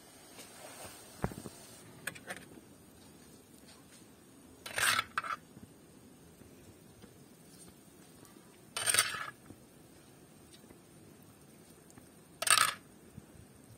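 Metal spoon scraping across a black iron saj griddle three times, each a short scrape about four seconds apart, as the vegetable filling is scooped up. A low knock about a second in.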